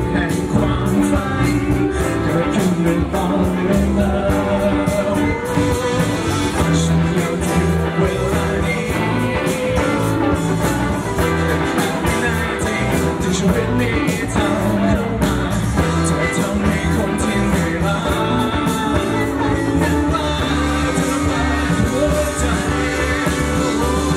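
Live rock band playing loudly through a PA: a male singer over electric guitars, keyboard and a drum kit with steady cymbal strokes.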